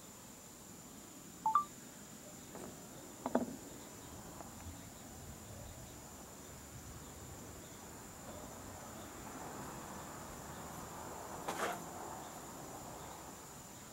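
Steady high-pitched chorus of night insects. A short chirp sounds about a second and a half in, and single sharp knocks come at about three seconds and again near the end.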